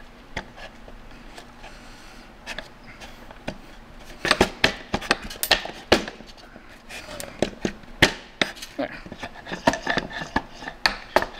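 Sharp clicks and knocks of an aluminium short-shifter bearing bushing and lever against a plastic shifter housing, as the bushing is pressed into place and the shift lever is worked back and forth. The clicks are sparse at first and come thick and fast from about four seconds in.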